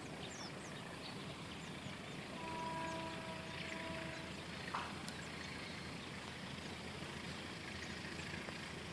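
Distant train horn sounding one steady note for about two seconds, a couple of seconds in, over faint outdoor background noise with scattered short high chirps.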